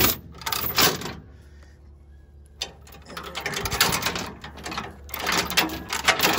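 Ratchet tie-down strap being worked by hand, in three bursts of rapid clicking and rasping.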